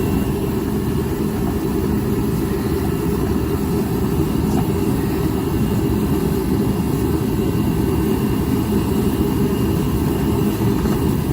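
Torpedo forced-air heater running, a loud steady low noise.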